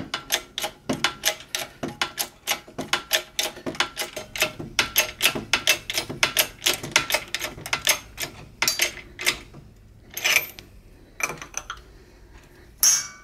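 Rapid, irregular metallic clicking and ticking as the impeller shaft of a Vortech supercharger is pressed out through its ball bearing in a shop press. It thins out to a few separate sharp snaps near the end; the last and loudest sounded like a crack.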